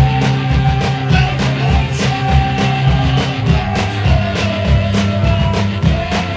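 Punk rock song playing as a soundtrack: steady drum hits over a heavy bass line, with a guitar melody above.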